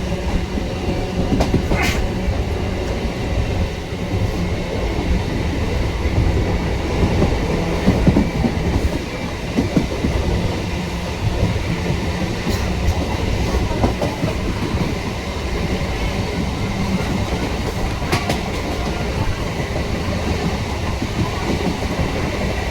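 Suburban electric multiple unit (EMU) train running on the track: a steady rumble of wheels on rails with clickety-clack over the joints and a few sharp clicks.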